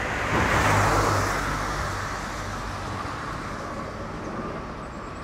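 A road vehicle passing: a rush of noise that swells about half a second in and slowly fades away.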